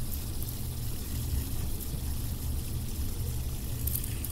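A fidget spinner spinning with a steady, low, even whir. Its bearing has been cleaned with rubbing alcohol and now runs quietly.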